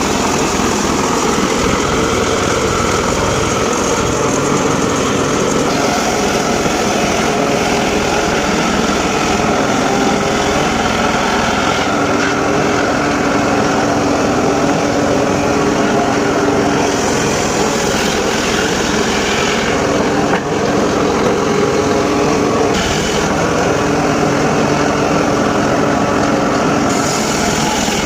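Homemade circular saw bench running continuously while it cuts teak wood. It is a steady, loud machine sound, with its tone shifting every few seconds as the load changes.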